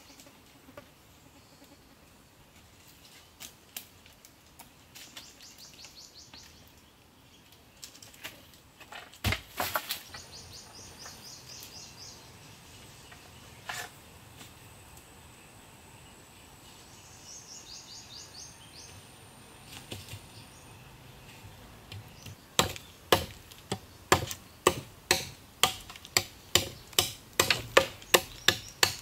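A machete chopping wood: a quick run of sharp strokes, about two a second, starting roughly three-quarters of the way in. Before it there is quiet forest with high chirping and a few scattered knocks.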